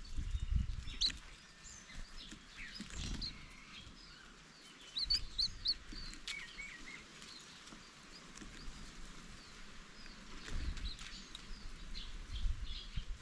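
Green-backed white-eyes chirping and twittering in many short, high calls and trills. A few low rumbles come and go underneath.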